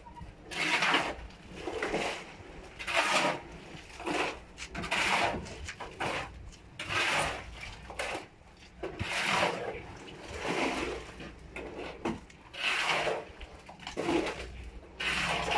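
Steel shovels scraping through wet concrete mix on a concrete slab as it is mixed by hand, one scrape about every two seconds.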